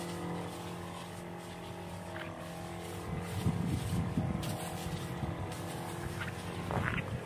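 Motorized knapsack sprayer's pump running with a steady hum while spraying, with a rougher low rumble for about a second midway.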